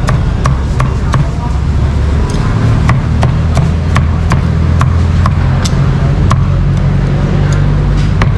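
A knife chopping crispy roast pork: sharp, irregular strikes about two a second, over a steady low rumble of traffic.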